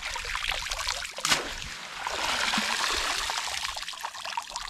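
Water splashing and running off a cast net as it is lifted from a shallow pool, with one sharp splash about a second in and a swell of streaming water toward the middle.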